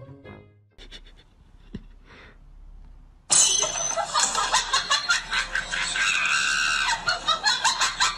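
Loud, shrill laughing and shrieking from a person, starting suddenly about three seconds in.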